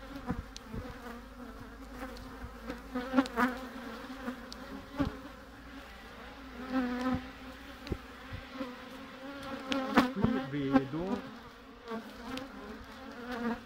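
Honeybees buzzing over an opened hive: a steady hum from the colony, with single bees flying close by in a wavering pitch. A few sharp clicks and knocks come through, the loudest about ten seconds in.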